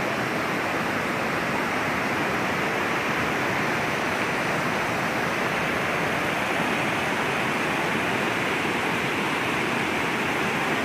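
Waterfall: the steady, unbroken sound of falling water.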